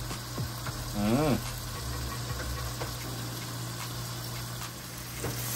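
Butter and chopped vegetables sizzling gently in a wok over a steady low hum. A short hummed voice note rises and falls about a second in.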